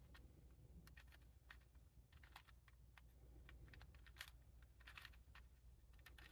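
Faint, irregular clicking of a 4x4 Rubik's Cube's plastic layers being turned by hand, a few clicks a second.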